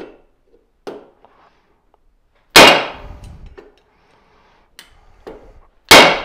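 Two hard hammer blows, a little over three seconds apart, struck on the shank of a drill bit laid across a folding knife's liner lock on a cobbler's iron last, each ringing briefly. The blows peen the liner to lengthen it slightly so it springs against the blade. Light metal clicks and taps come between them as the bit is set in place.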